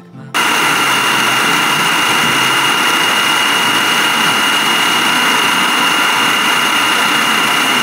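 Food processor motor switched on about a third of a second in, then running steadily at full speed with a high, constant whine. Its blade is whipping cream to churn it into butter.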